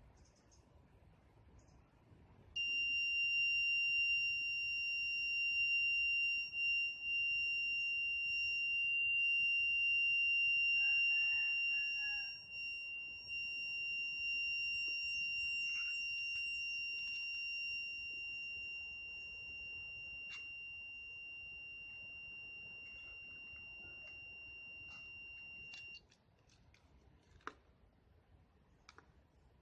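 Buzzer of a homemade fire alarm, switched by a tube light starter, sounding one steady high-pitched tone. It starts suddenly a couple of seconds in, slowly grows fainter, and cuts off suddenly about twenty-six seconds in.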